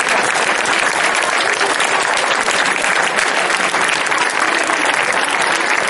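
A crowd applauding, dense and steady.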